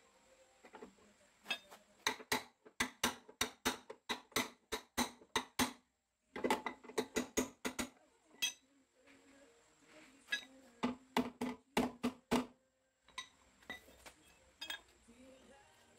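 Hammer blows on the bent steel front chassis rail of a Perodua Viva, metal on metal, straightening the accident-damaged frame. The ringing blows come in quick runs of about three to four a second, with short pauses between runs and a few scattered taps near the end.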